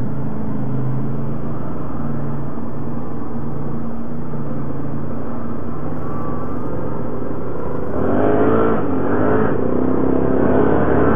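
ATV engine running steadily while riding along a trail. About eight seconds in it gets a little louder and the pitch wavers and climbs as the throttle changes.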